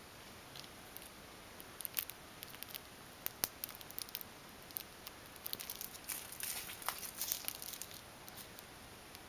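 Light clicks and crinkly rustling of a clear plastic drinking straw as a ragdoll cat bats and bites at it. The sounds come in scattered bursts, busiest for about two seconds past the middle.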